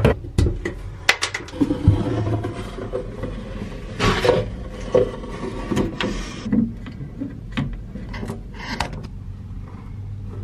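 Irregular knocks, clicks and scrapes of a long marking rod being worked inside a hollow boat crossbeam, with a low steady hum underneath.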